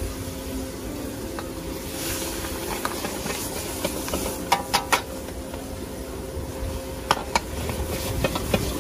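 Food sizzling in a wok as it is stir-fried with a metal ladle over an open fire: a steady hiss, with a few sharp clanks of the ladle against the wok about halfway through and again near the end.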